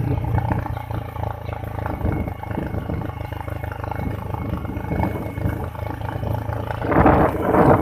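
Wind buffeting the microphone on a moving motorcycle, with the engine's steady low drone underneath; the wind noise surges louder near the end.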